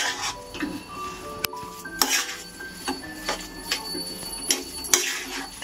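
A steel spoon clinks and scrapes against a steel kadhai as boiled potato filling for batata vada is stirred, in a series of irregular sharp clinks.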